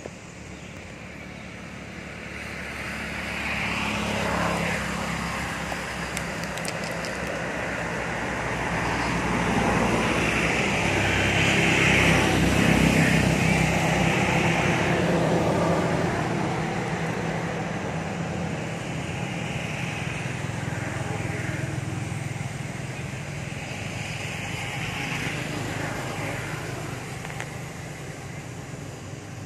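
A distant engine's steady drone, building to its loudest about halfway through and then slowly fading.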